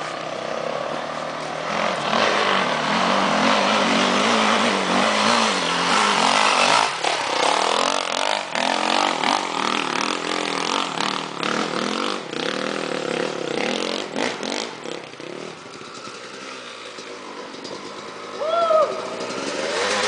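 Dirt bike engine revving hard under load, its pitch rising and falling constantly as it climbs, for most of the stretch before dropping away about three quarters in. Near the end a second dirt bike's engine note rises as it climbs toward the listener.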